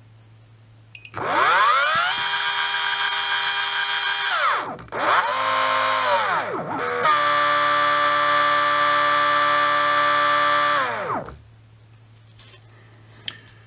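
Surpass Rocket V6 17.5T brushless RC motor run up on a Hobbywing Tunalyzer tester with its timing advanced to about 50 degrees: its whine rises about a second in, holds steady at high speed, dips and climbs again twice, then winds down near the end.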